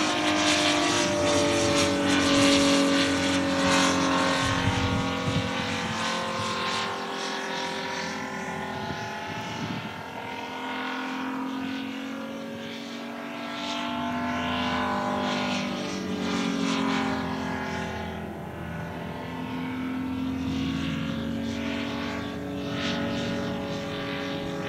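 Biplane's propeller engine running through an aerobatic sequence, its pitch rising and falling repeatedly as it manoeuvres, louder in the first few seconds.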